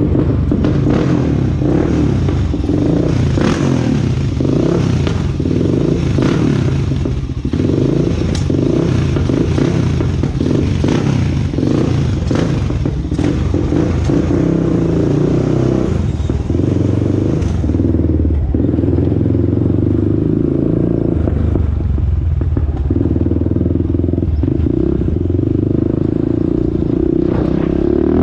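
Honda TRX400EX ATV's air-cooled single-cylinder four-stroke engine running on a test ride, its pitch rising and falling a little with the throttle, with a few sharp clacks. The ride checks whether an earlier ticking noise is gone, and no ticking is reported.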